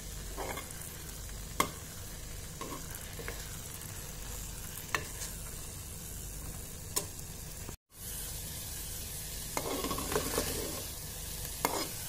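Milk curds sizzling in ghee in a metal pot over low heat as they dry out, most of their water already boiled off. A steel spoon stirs and scrapes through them, clicking sharply against the pot a few times. The sound cuts out for an instant about eight seconds in.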